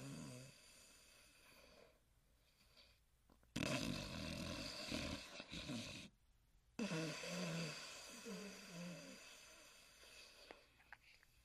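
Huckleberry Hound snoring: a rough, rasping snore breath about three and a half seconds in, a brief pause, then a longer breath with a wavering low pitch that slowly fades away.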